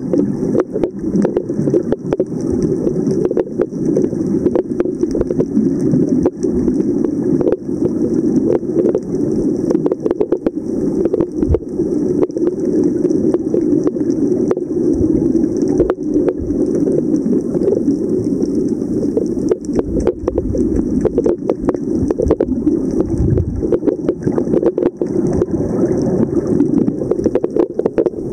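Underwater ambience picked up by a submerged camera: a dense, muffled rumble of water with constant fine crackling clicks.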